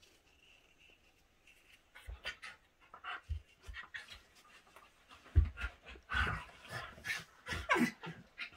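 Two dogs play-fighting: panting, snuffling and mouthing noises with a few dull thumps, starting about two seconds in. A short falling whine comes near the end.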